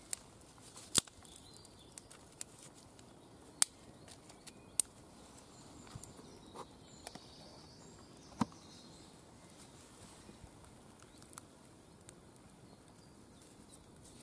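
Small fire of dry twigs and sticks crackling as it catches, with sharp pops a few seconds apart over a faint steady hiss.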